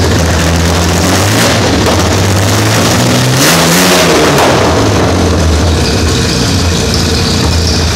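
Carbureted Jaguar 4.2-litre DOHC straight-six engine running, with one quick rise and fall in revs about three and a half seconds in.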